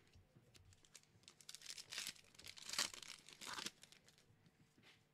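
Foil wrapper of a Pokémon Battle Styles booster pack being torn open and crinkled, in three short bursts, the loudest about three seconds in.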